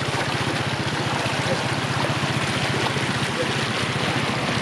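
Floodwater rushing and splashing, with a steady low engine throb running under it.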